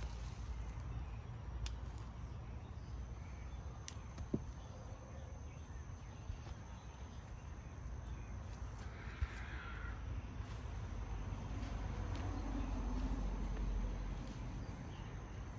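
Wind rumbling on the microphone outdoors, with a few light clicks and a bird calling once about nine seconds in.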